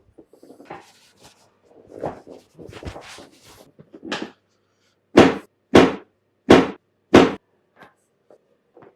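A chiropractic adjustment: a run of small knocks and cracks, then four loud, sharp thumps evenly spaced about two-thirds of a second apart, beginning about five seconds in.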